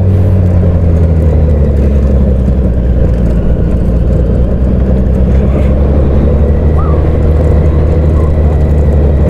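Motorcycle engine running at low, steady revs while riding over a cobblestone road, the revs easing off slightly in the first couple of seconds, with rumble from the tyres on the cobbles.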